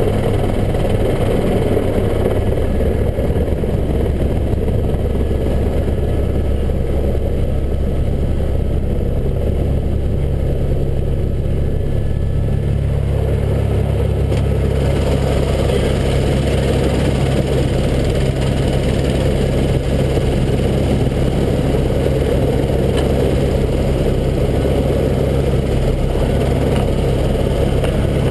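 Helicopter engine and main rotor running steadily, heard from inside the cabin as a loud low hum. About halfway through, a higher hiss grows stronger.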